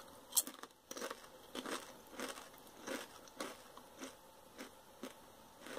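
A Doritos tortilla chip bitten into with a crisp crunch just under half a second in, then chewed with closed mouth: short crunches about two a second.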